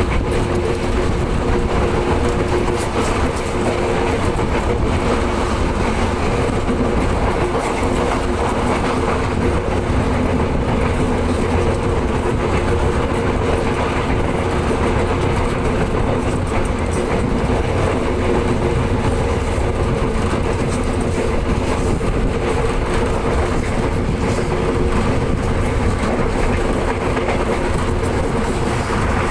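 Commuter train running along the rails: a steady rumble with a steady hum over it.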